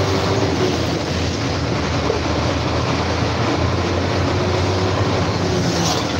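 Steady engine drone and road rush heard from inside the cab of a moving truck: a constant low hum under an even rushing noise.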